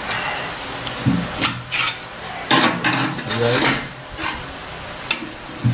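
Metal scraping and clinking in irregular bursts as a sheet-steel coolant pipe is worked and pulled loose from the top of a bare Toyota 2C diesel engine block.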